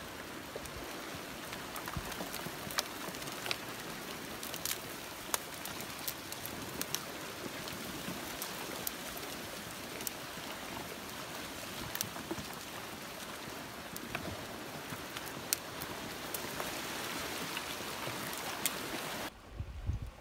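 Debris-laden front of a flash flood: a mass of branches and sticks pushed down a dry wash, crackling with many sharp clicks over a steady hiss as the wood grinds and snaps. It cuts off suddenly near the end.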